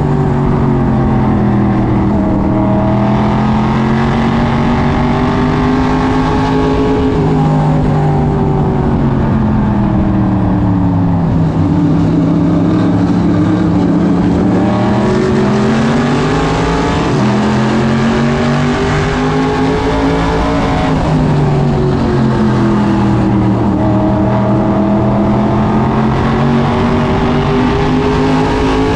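SK Modified race car's engine heard from inside the cockpit, its pitch rising and falling in long swells several times as the driver gets on and off the throttle around the track, over steady road and wind noise.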